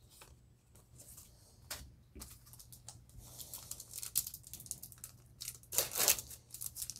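A foil Yu-Gi-Oh booster pack wrapper being torn open and crinkled apart, loudest about six seconds in, after faint rustling of trading cards being handled.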